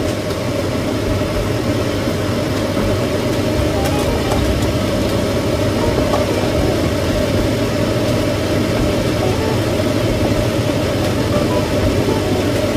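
Kitchen range hood exhaust fan running with a steady whir.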